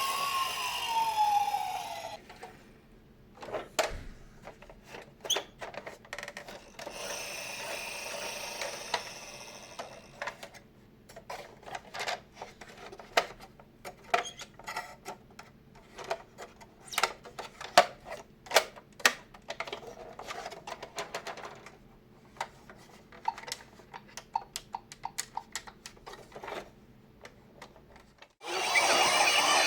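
Toy ambulance minicar's electronic siren sweeping up and down in pitch, cutting off about two seconds in. A long stretch of scattered sharp clicks and knocks with some rubbing noise follows, and the siren starts again near the end.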